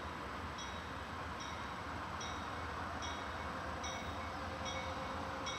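Distant diesel-hauled freight train approaching: a steady low rumble and hiss. Over it, a short high ding repeats evenly about once a second.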